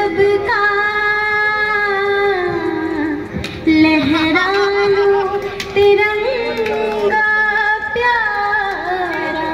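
A woman singing a slow melody in long held notes, amplified through stage loudspeakers.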